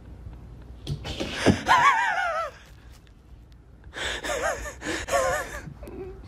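Two breathy, high-pitched vocal cries with a wavering pitch, each about a second and a half long, the first about a second in and the second about four seconds in.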